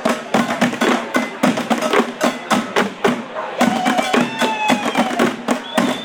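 Batucada rhythm beaten on recycled objects such as buckets and cans instead of drums: a fast, steady pattern of sharp hits, with voices calling out over it.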